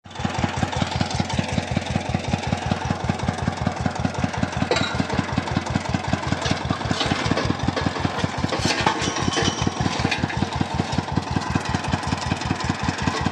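Engine of a belt-driven water-well boring rig running with an even beat of about five pulses a second. A few sharp metal clinks from the rig come through between about four and ten seconds in.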